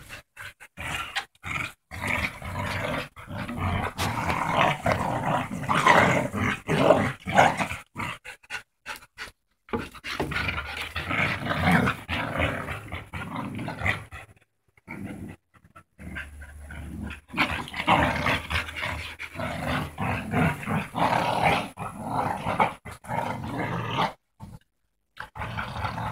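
Bulldogs growling as they play tug of war, the growls coming in stretches broken by short gaps.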